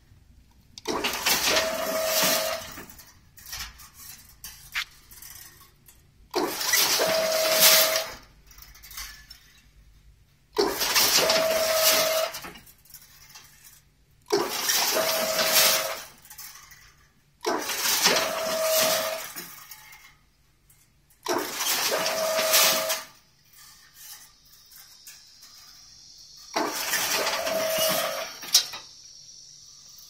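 Semi-automatic crimped wire mesh weaving machine running through its weaving cycle. Each cycle is a burst of mechanical clatter about two seconds long with a steady whine in it, seven times at an even pace of about one every four seconds, with quieter pauses between.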